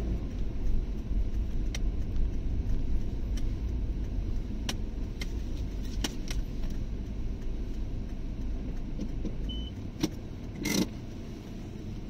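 Car driving slowly, heard from inside the cabin: a steady low rumble of engine and tyres, with scattered small clicks and rattles. The deepest part of the rumble eases off about ten seconds in.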